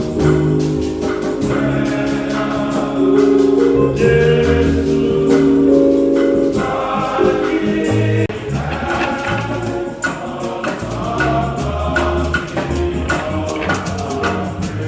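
Church choir singing a hymn with instrumental accompaniment: held sung notes over a moving bass line, with steady percussion beating throughout.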